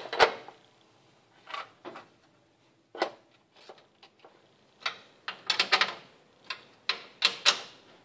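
Sharp metallic clicks and clinks of hand tools and hardware as a brake master-cylinder adapter plate is fitted and bolted onto a car's firewall studs, some single and some in quick runs of several, with short pauses between.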